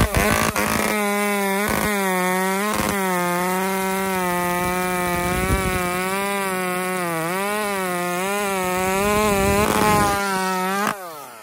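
Modified Echo 2511 top-handle chainsaw's small two-stroke engine held at high, nearly steady revs, the pitch dipping slightly now and then, with a few short knocks in the first few seconds. Near the end the throttle is released and the revs fall away.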